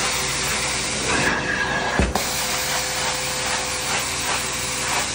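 Carpet-cleaning extraction hand tool drawing air and water up through carpet: a steady hiss of suction with a faint steady tone underneath. A brief whistle comes between about one and two seconds in, and there is a single knock about two seconds in.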